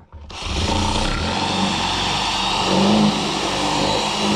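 Cordless drill running steadily as its bit bores into the plastic of an inline skate's cuff, enlarging the hole so a cuff insert will fit. It spins up just after the start.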